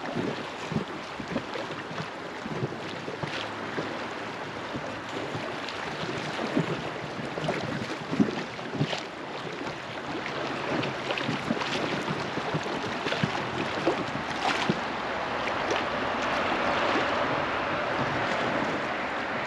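River water lapping and splashing around a drifting raft: a steady rush scattered with small splashes and drips, growing fuller and louder near the end.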